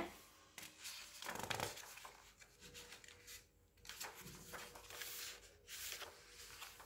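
Paper rustling in soft, irregular bursts as book pages are handled and turned.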